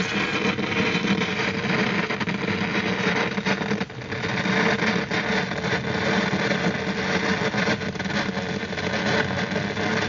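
Steady noise inside a moving car in a storm: the engine and road noise blend with wind against the car, with a brief dip about four seconds in.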